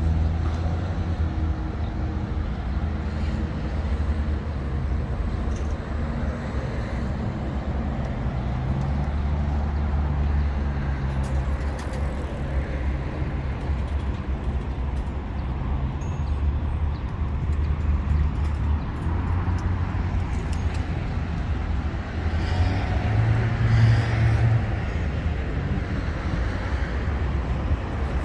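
Steady road traffic: cars running past in a continuous low rumble, with one vehicle passing louder near the end.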